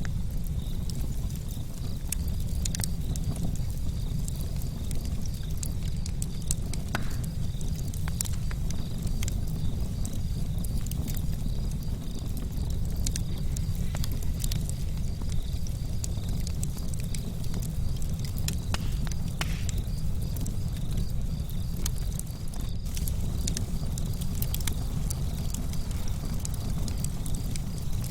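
Wood campfire burning, crackling with many sharp irregular pops over a low steady rumble.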